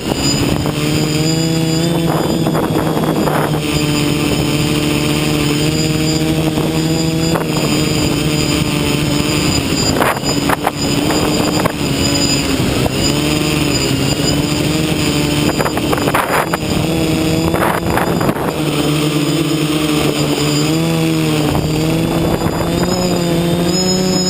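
Electric motors and propellers of a multirotor drone humming steadily, their pitch stepping up and down as the throttle is worked against the wind. A few short gusts of wind hit the microphone.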